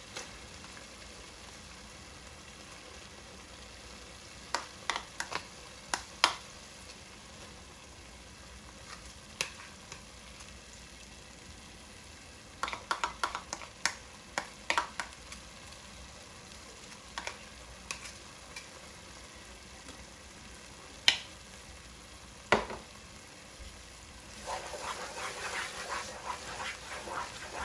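Onion, garlic and berbere frying in a pot with a soft sizzle, with scattered sharp clicks and taps as tomato paste is added. Near the end a wooden spoon starts stirring the thick mixture, a louder scratchy scraping.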